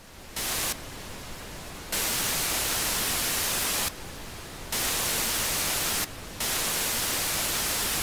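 Television static: a steady hiss from a CRT set's snowy screen that jumps up and down in loudness several times, in stretches of a second or two.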